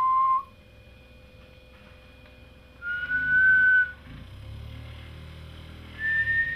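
Three steady whistled notes, each held about a second and each higher than the last: the first ends about half a second in, the second comes about three seconds in, and the third starts near the end. After the second note a low hum rises underneath: the vibration motor running at the speed set by the detected pitch.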